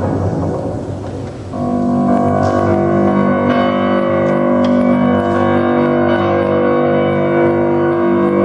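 Grand piano playing solo. A dense, busy low passage thins and softens about a second in. Then a loud chord is struck and left ringing, with repeated high notes struck over it.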